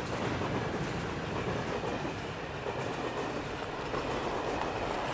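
Train running on the rails, a steady, even noise throughout.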